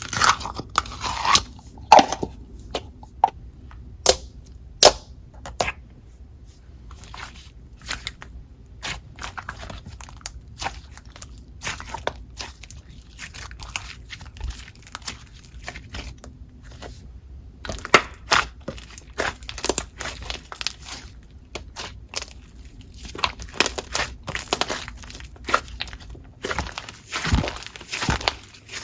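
Hands squishing, poking and pressing a soft clay slime (pink clear slime with butter clay mixed in), giving irregular small wet clicks and pops, with a couple of quieter pauses.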